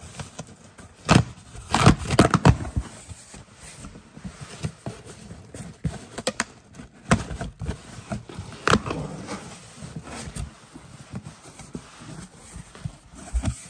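Packing tape being ripped off a cardboard shipping box, with the loudest tearing about two seconds in, followed by the cardboard flaps being opened and handled with scraping and crackling.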